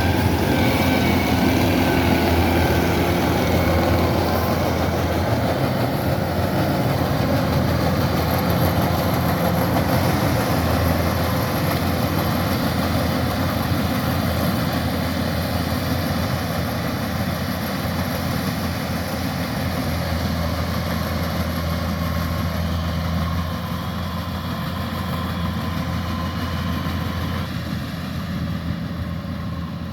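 Diesel engine of a Kubota rice combine harvester running steadily with a deep hum, easing slightly quieter toward the end.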